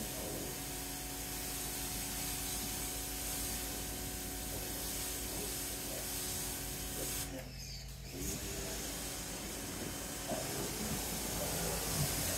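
FOTING electric pressure washer spraying water through an orange nozzle tip: a steady hiss of spray over the motor's hum. It stops for about a second around seven and a half seconds in, then starts again.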